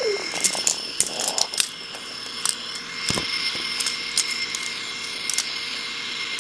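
Irregular clicks and rattles of toy trains being pushed and handled, most frequent in the first couple of seconds, over a faint steady high whine.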